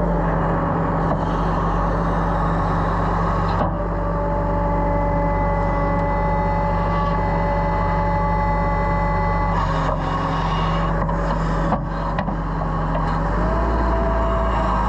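Excavator's diesel engine running steadily while the bucket digs into soil, with a thin whine over the engine. The whine rises in pitch near the end.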